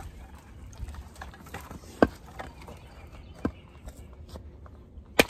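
Wood being chopped into small splits: three sharp knocks of a blade striking wood, one about two seconds in, another a second and a half later, and the hardest near the end.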